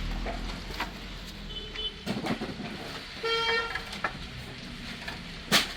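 A short horn toot about three seconds in, over a low background rumble, with a few sharp knocks, the loudest near the end.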